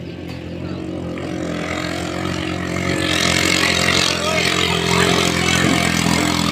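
Racing ketinting (longtail) boat engine running flat out at a steady pitch, growing louder as the boat closes in, with a rushing hiss building from about halfway through.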